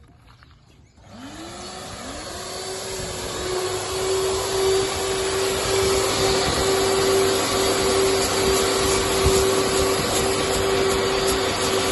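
Vacuum cleaner switched on about a second in: its motor whine rises in pitch over a couple of seconds, then runs steady over a loud rush of air.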